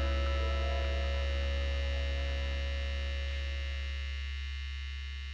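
The last held chord of a hard rock song ringing out on distorted electric guitar over a deep low note, slowly fading. The higher notes die away about four seconds in.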